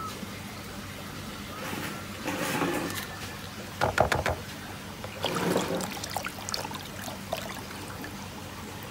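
Water splashing and trickling in a shrimp-larvae tank over a steady low hum, with a brief cluster of sharp knocks about four seconds in.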